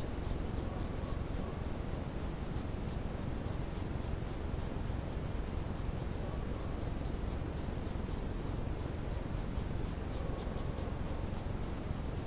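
Steady low rumble and hiss, with faint, short high-pitched chirps repeating several times a second.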